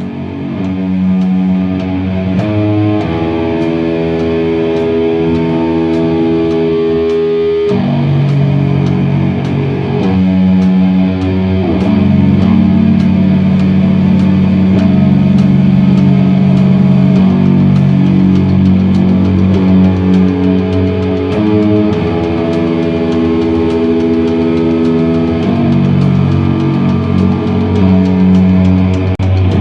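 Live instrumental rock: electric guitar through effects plays long held notes and chords over a low bass line, with a steady high tick about twice a second. It swells up in level over the first second or so.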